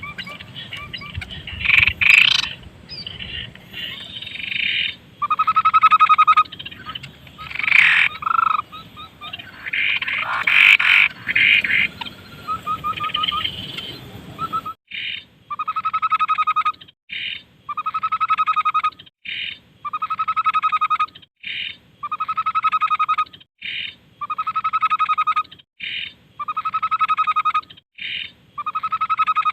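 Recorded tepus (babbler) song used for masteran. For the first part it is a jumble of overlapping calls. About halfway through it settles into a steady repeating phrase: a call about a second long followed by a short note, roughly every two seconds.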